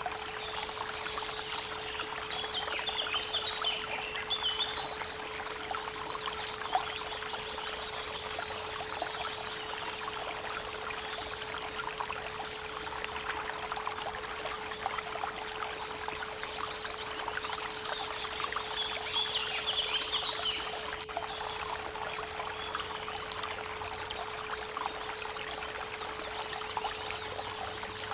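Creek water running steadily, with a 432 Hz pure tone held underneath. A bird sings a warbling phrase a few seconds in and again about two-thirds of the way through.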